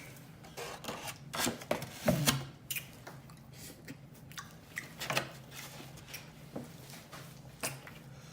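Close-up eating sounds: blue crab shell being cracked and pulled apart, with chewing and wet mouth smacks, heard as irregular sharp clicks and snaps.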